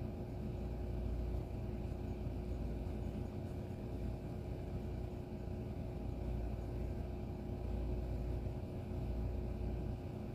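Steady low background hum with a faint constant tone, unchanging throughout, with no handling or tool sounds.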